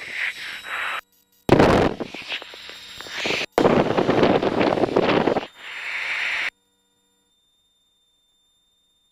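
Loud rushing cabin noise of a light aircraft heard through the headset intercom. It cuts out abruptly twice and then drops to dead silence about six and a half seconds in.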